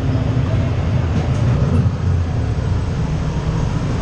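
Steady low rumble of a Radiator Springs Racers ride car rolling along its track, heard from inside the open car.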